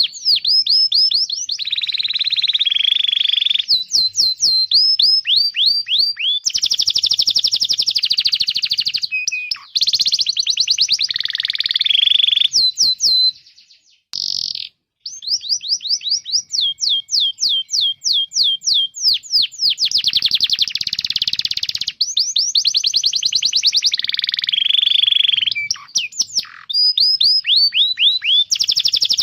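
Domestic canary singing a fast chirping song: runs of rapid, repeated downward-sweeping chirps alternate with buzzy rolling trills. There is a brief pause about halfway through.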